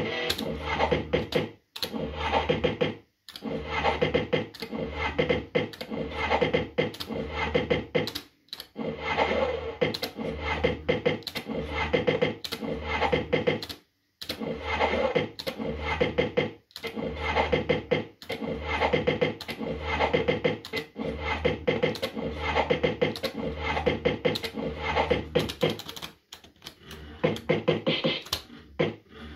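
JPM Red Hot 6 fruit machine running spin after spin: rhythmic electronic reel-spin music and effects with sharp clicks, broken by brief pauses between games.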